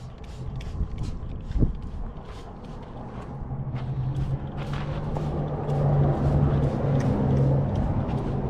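A motor running: a steady low hum comes in about three and a half seconds in and grows louder, over scattered clicks, with a sharp knock near the start.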